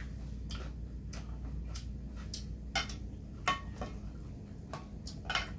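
Stainless tongs and ladle clinking against a metal pot and bowls as noodles are served: a scattering of sharp clinks and taps, a few ringing briefly.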